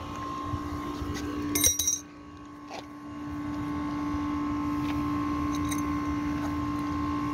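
A metal tool clinks against the compressor's mounting hardware: one sharp, ringing clink a little under two seconds in, with fainter handling knocks around it. Under it runs a steady machine hum.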